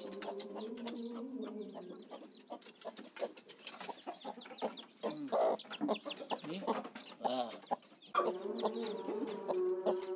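A broody kampung hen calling in long drawn-out notes as she is lifted off her nest with her newly hatched chicks, with a run of clicks and handling rustles in the middle. High, short peeps from the chicks come through throughout.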